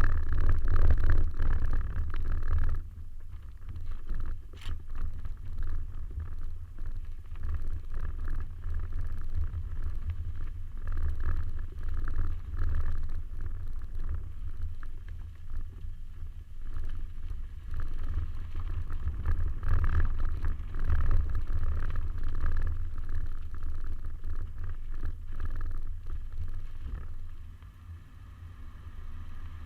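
Suzuki Swift's engine running as the car is driven off-road, a deep rumble whose loudness rises and falls, dropping off near the end.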